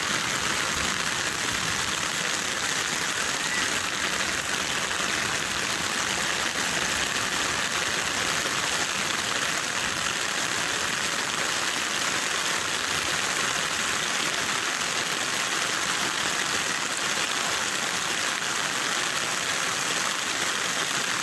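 Heavy rain pouring down onto a flooded lane: a steady, dense hiss that holds even throughout.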